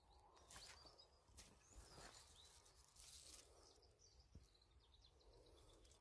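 Faint woodland ambience: scattered soft rustles and a few faint, high bird chirps.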